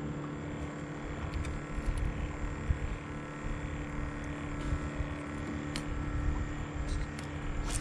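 A steady motor hum over a low, uneven rumble, with a few faint small clicks as a metal snap swivel and hook are handled while a shrimp is baited.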